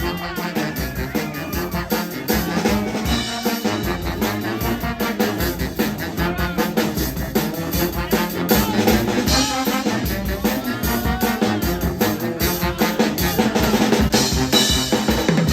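Pep band playing live: brass horns over a steady drum-kit beat with snare and bass drum.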